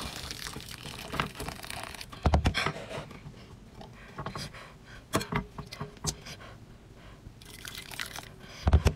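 Hot water pouring from a kettle into a glass bowl at the very start. Then wet handling noises and a few sharp knocks as a geoduck clam is gripped by its siphon and lifted out of the bowl.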